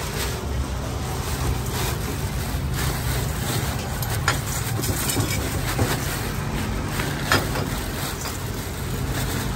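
Steady street traffic noise, mostly motorbike engines, with a few light clinks of a ladle against the metal soup pot and ceramic bowls.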